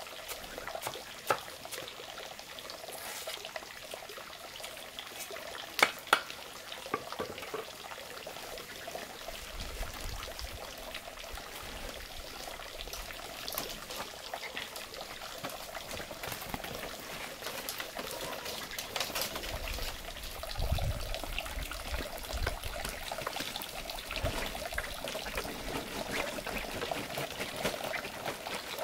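Water trickling and pouring steadily, with a few sharp knocks in the first several seconds.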